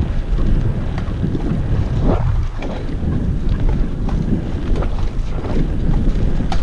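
Wind buffeting the microphone: a loud, steady rumble with a few faint ticks in it.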